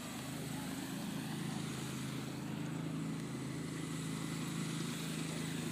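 A steady low mechanical drone, even in level throughout, with no clear start, stop or change.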